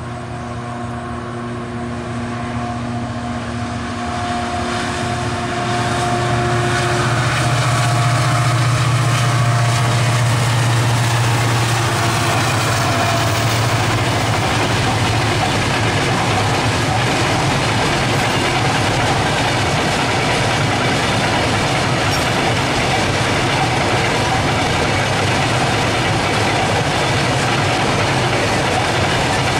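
WDG4 (EMD GT46MAC) diesel locomotive's two-stroke EMD 710 engine working in notch under load: a steady drone with a few held tones that grows louder over the first several seconds. From about twelve seconds in, the engine tones give way to the even rumble and rattle of a long train of truck-carrying flat wagons rolling past.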